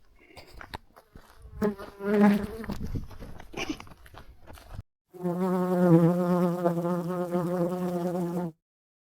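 Honeybee buzzing close by: a loud, steady hum with a slight waver for about three and a half seconds, cutting off abruptly. Before it come a few seconds of scuffling and knocks.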